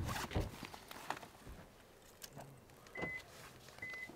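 A car door shuts with a heavy thud at the start, followed by quiet clicks and rustling of gear being handled at the back of an SUV. Two short high beeps come about a second apart near the end.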